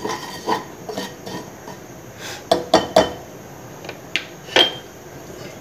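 A spatula knocking and scraping in a non-stick wok, giving sharp clinks: a quick cluster about two and a half seconds in and two more near the end, the last one ringing briefly. Meanwhile fenugreek and cumin seeds are starting to crackle in the hot oil.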